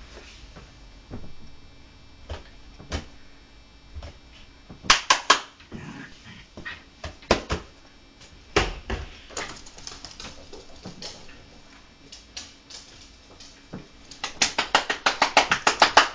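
A bichon puppy at ball play: scattered sharp, short sounds a few at a time, then a fast run of about a dozen near the end.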